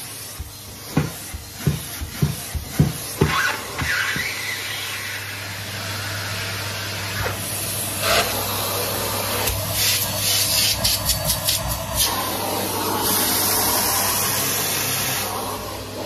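Henry cylinder vacuum cleaner running steadily with a low hum. Its metal wand knocks against the stair treads several times in the first few seconds, a run of clicks comes around the middle, and the suction hiss grows louder near the end.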